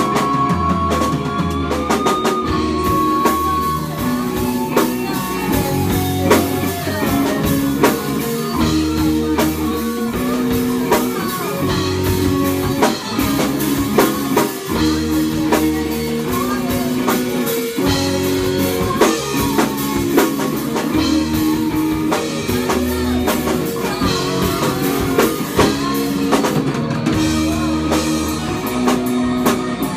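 Rock band playing live: two electric guitars and a drum kit together, with a steady driving beat and repeated guitar figures.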